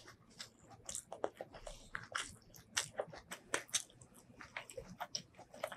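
Close-up mouth sounds of chewing and biting spicy shrimp curry: a quick, irregular string of short wet clicks and crunches.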